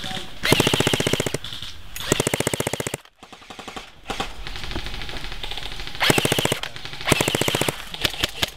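Airsoft electric rifles (AEGs) firing full-auto: about four short bursts of rapid, evenly spaced shots, each under a second, with a whining gearbox behind the clatter. There is a brief lull about three seconds in.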